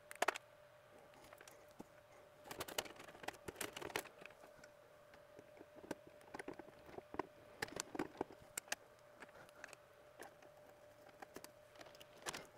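Faint, scattered clicks and taps of a screwdriver and a copper ground wire being worked into the terminal screws of an electrical panel's ground bus bar, over a faint steady hum.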